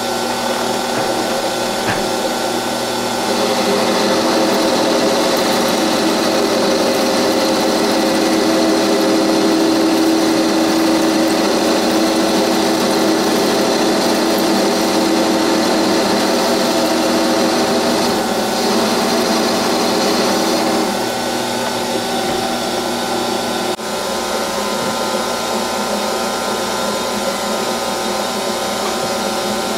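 Metal lathe running steadily with a steady machine whine while a cutting tool turns down a round workpiece. Late on, the sound changes as a drill held in the tailstock chuck is fed into the end of the spinning workpiece.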